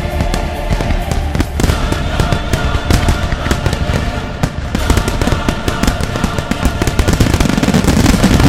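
Dense fireworks barrage: many sharp shell reports in quick succession, over music with held chords. The barrage grows a little louder near the end.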